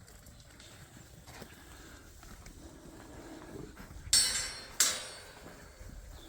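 Rams moving about, then two loud sharp bangs about four seconds in, less than a second apart, each ringing briefly.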